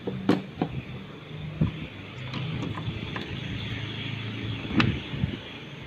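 A mains plug is pushed into a power strip with a sharp click, followed by a few more clicks and knocks of handling, the loudest near the end. A steady low hum runs underneath.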